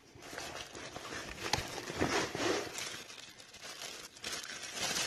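Packaging crinkling and rustling in irregular handling, with a few light clicks, as a tool is unpacked from its box.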